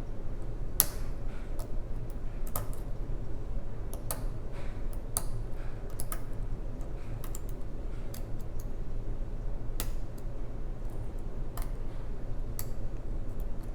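Lock pick and tension wrench working the pins of a five-pin Wilson Bohanan padlock: scattered small metallic clicks at irregular intervals, over a steady low hum.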